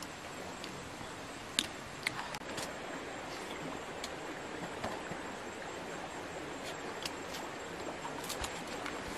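Outdoor background: a steady hiss with scattered small clicks and rustles, the sharpest about a second and a half in.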